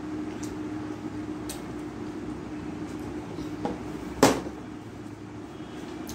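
Eating by hand from a stainless-steel plate: a few faint clicks, then one sharp metallic clink against the steel plate about four seconds in, over a steady low hum.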